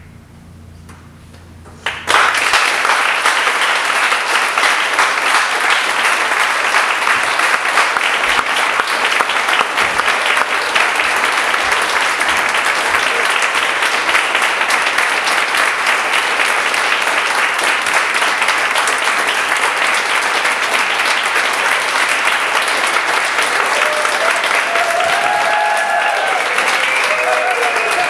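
Audience applause breaking out suddenly about two seconds in and going on loud and steady, with a few voices calling out above it near the end.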